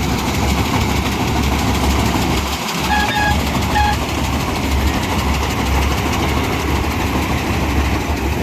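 Avatar 6500 combine harvester running steadily under load while cutting a crop, a loud continuous engine hum and machinery noise. Two brief high tones sound about three seconds in.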